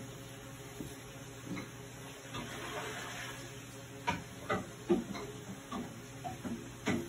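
Scattered light clicks and knocks of kitchen work over a faint steady hiss, which swells briefly about three seconds in, from a pot of water heating toward the boil on the stove.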